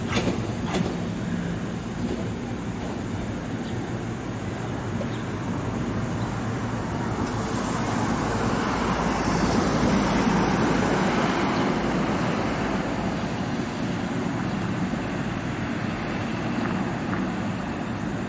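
Meitetsu 9500-series electric train creeping into the platform and slowing to a stop. There are a couple of wheel clicks over the rail joints just at the start, and the running noise swells midway with a whine that falls in pitch as it brakes.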